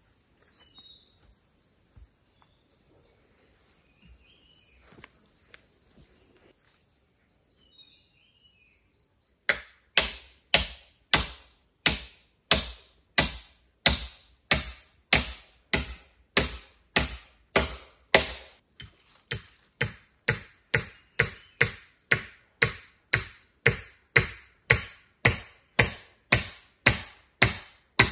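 A faint, rapid high trill of a small bird, then from about a third of the way in a tool striking wood in steady, evenly spaced blows, about two a second.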